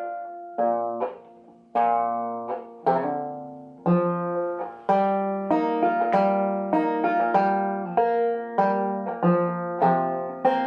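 Banjo picked slowly in a simplified two-finger style, single notes and chord shapes plucked one at a time, each ringing out and dying away. It is tuned a full step below double C (F, A-sharp, F, A-sharp, C) with looser strings.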